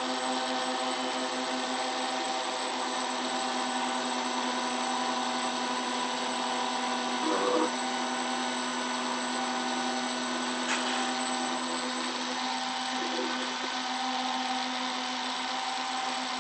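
A CNC router's spindle runs steadily while its small bit mills trace outlines into a copper-clad PCB, giving a constant motor whine. A higher tone comes and goes over it about once a second, and there is a brief louder moment about halfway through.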